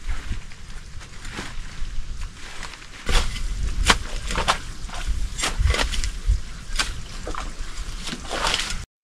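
A digging tool chopping into the soil in a run of sharp strikes, starting about three seconds in, over a steady low rumble of wind on the microphone.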